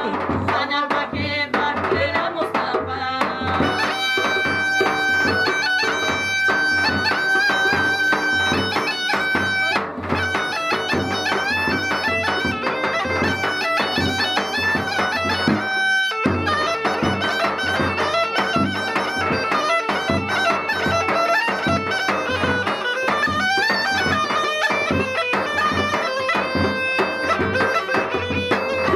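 Bulgarian gaida, a goatskin bagpipe, playing a fast folk tune with quick note changes over a steady low drone. The tune dips briefly about ten seconds in and breaks off for a moment about sixteen seconds in.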